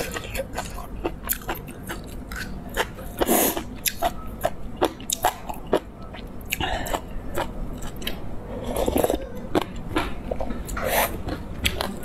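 Close-miked eating sounds: chewing and slurping noodle soup from a spoon, with many short clicks and a few longer slurps at about 3, 7, 9 and 11 seconds.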